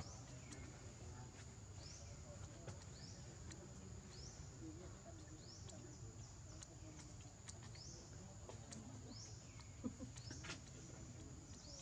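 Faint forest ambience: a steady high-pitched insect drone, with a short falling chirp repeating about every three-quarters of a second and a few faint clicks, one louder near the end.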